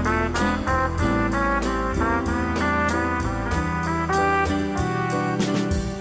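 Upbeat background music with brass lead, a melody of short notes over a steady bass line and beat.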